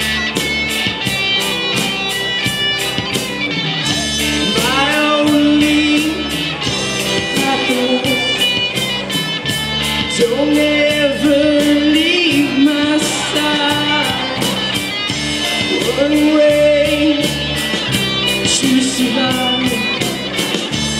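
Live rock band playing: electric guitars and drums keeping a steady beat, with a lead melody line that slides up and down in pitch.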